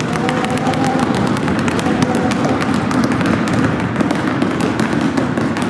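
Several basketballs dribbled hard and fast on a hardwood gym floor: two players each pound two balls at once, giving a dense, unbroken patter of bounces.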